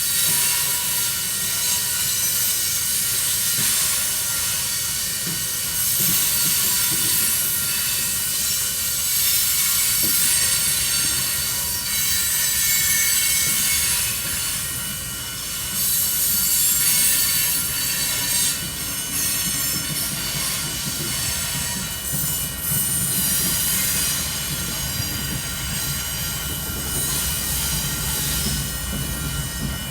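Union Pacific coal train's freight cars rolling past: a steady rolling rumble and rush of wheels on rail, with thin, steady high-pitched tones running through it.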